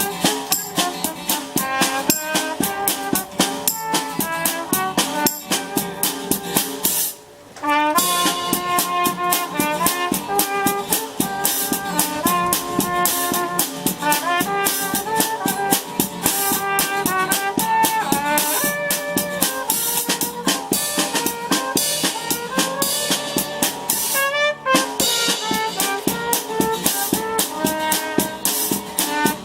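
Band music with brass and a drum kit playing a steady beat; the music briefly drops out about seven seconds in, then comes back.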